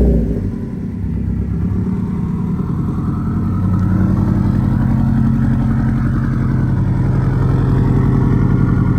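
2009 Subaru WRX's turbocharged flat-four engine idling just after being started. It settles after the start-up flare and gets a little louder about three to four seconds in.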